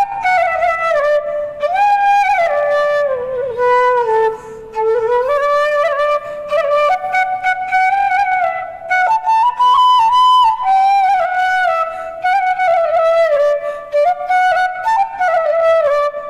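Bansuri, a side-blown bamboo flute, playing a solo melody whose notes glide and ornament between one another. There is a brief breath pause about four seconds in.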